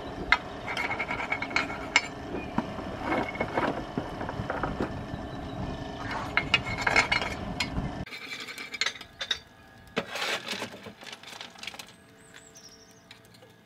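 Steady hum of an electric draught fan on a miniature steam locomotive's chimney drawing up the fire while it is lit, with repeated metallic clinks and clicks at the firebox. About eight seconds in it cuts to a much quieter scene with only scattered light clicks.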